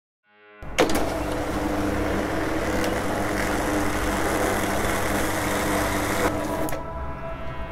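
Futuristic city ambience sound effect: a steady wash of traffic-like noise with low hums, opening with a sharp click. The noise cuts off near the end, leaving sustained synth tones.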